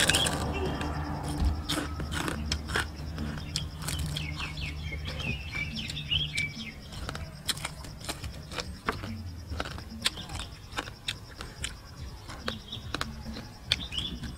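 Close-up chewing and crunching of crispy deep-fried rat meat, with many short sharp crackles, while small birds chirp in the background.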